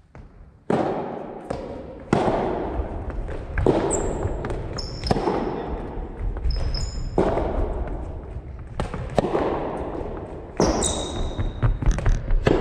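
Soft tennis rally in a large echoing gymnasium: the soft rubber ball is struck by rackets and bounces on the wooden floor, a sharp knock about every one and a half seconds, each with a long echo. Sneakers squeak briefly on the floor now and then.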